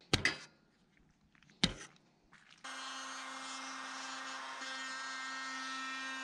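Two sharp knocks, then about two and a half seconds in a Makita compact router switches on and runs at a steady pitch, fitted with a new roundover bit for rounding off a board's top edge.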